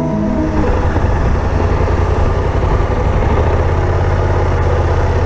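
BMW C650 GT maxi-scooter's parallel-twin engine running steadily, with a constant low drone.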